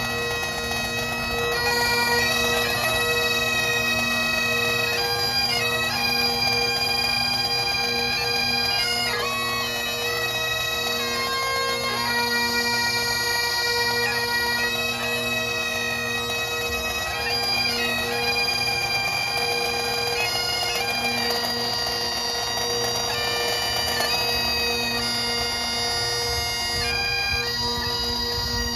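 Highland bagpipes playing a slow tune, held melody notes moving over a steady, unbroken drone.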